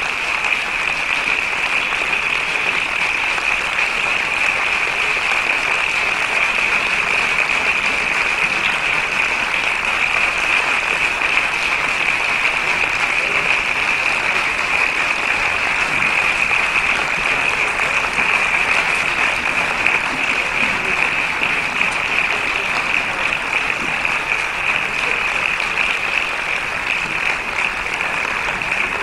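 Large audience applauding, a dense steady clapping that holds at an even level throughout.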